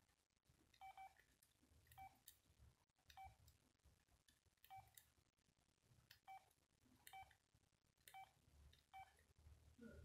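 Keypad key tones of a Nokia 2608 flip phone: about nine short, faint beeps, one with each button press, spaced roughly a second apart.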